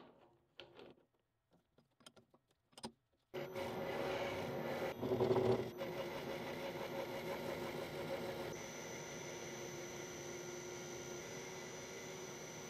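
A few metal clicks as a chuck key tightens the jaws of a three-jaw lathe chuck, then a small metal lathe starts running about three seconds in, spinning a steel bar in the chuck with a steady motor hum. It swells briefly a couple of seconds after it starts, and a thin high tone joins it about halfway through.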